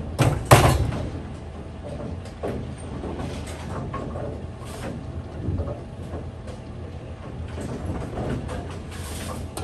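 Bowling alley background: a steady low rumble of lane machinery with scattered knocks and clatters, the loudest a pair of sharp knocks just after the start.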